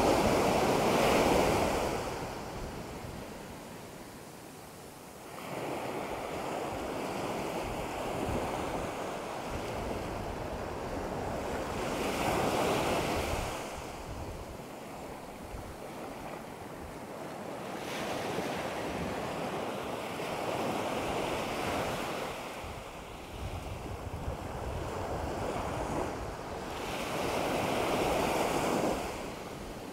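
Small ocean waves breaking and washing up a sandy shore, the surf swelling and fading in slow surges, loudest at the start, about twelve seconds in and near the end. Wind rumbles on the microphone underneath.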